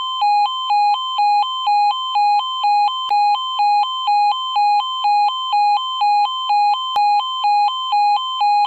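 E2S A105N-NR electronic alarm sounder giving a two-tone alternating warning signal, switching evenly between a lower and a higher tone about twice a second.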